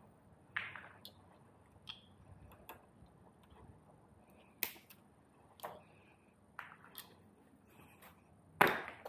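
Scattered sharp metallic clicks and clinks of hand tools and small parts being handled on a bike frame, about nine irregular knocks, a few with a short metallic ring. The loudest comes near the end.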